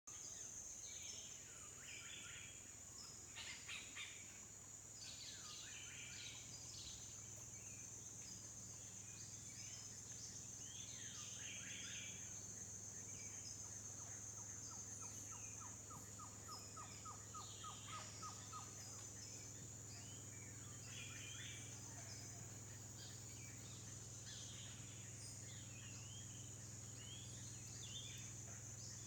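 Amazon rainforest ambience: a steady high-pitched insect drone over a low hum, with bird calls scattered throughout. About halfway through, a rapid run of repeated notes lasts a few seconds.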